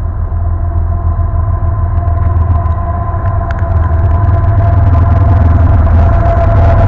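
Approaching CN diesel freight locomotive: a heavy engine rumble growing steadily louder, with a steady whine above it.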